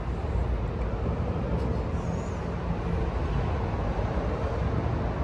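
Steady low vehicle rumble with no distinct events.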